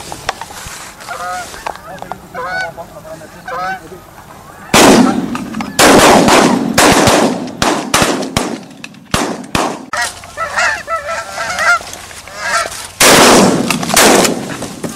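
A flock of geese honking overhead. The calling comes in very loud, close bursts about five seconds in, again for a couple of seconds after that, and near the end, with fainter honking in between.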